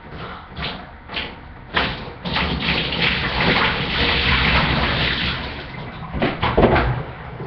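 Water gushing and splashing for about three seconds, after a few short knocks, then two or three sharp, loud splashes or thuds near the end.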